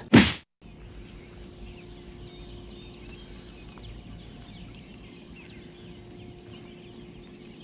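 A short loud sound cut off abruptly at the very start, then many small birds chirping in a dawn chorus over a faint steady hum.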